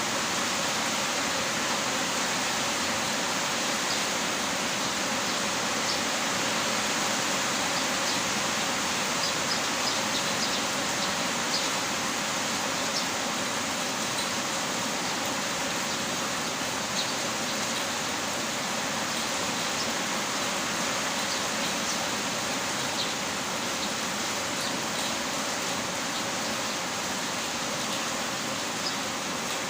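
Heavy rain falling steadily, an even hiss with a few faint scattered drop ticks.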